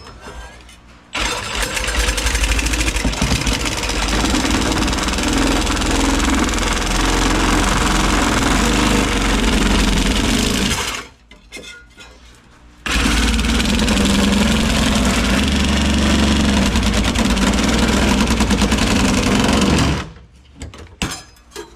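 Powered glass-removal tool with a long spoon blade running steadily while cutting through the urethane around a car's quarter glass, in two runs of about ten and seven seconds with a short pause between.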